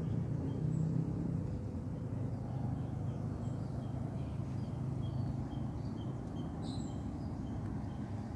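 Outdoor ambience: a steady low rumble, with faint, short, high bird chirps repeating through the middle and a sharper chirp near the end.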